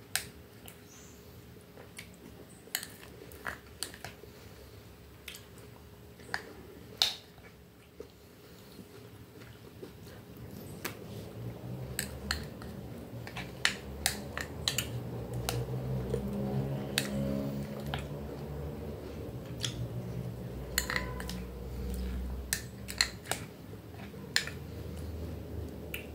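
Metal spoon clicking and scraping against a small glass bowl while fruit salad with Nutella is stirred and eaten, with soft chewing. From about ten seconds in, a low droning hum swells in the background and fades near the end.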